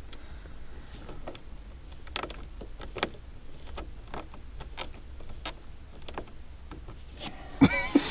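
Fingernails picking and peeling dried crack filler and colour coating off a vinyl dashboard: irregular small clicks and scratches, with a louder knock and a brief squeak near the end. The cheap repair compound is lifting off the vinyl instead of holding.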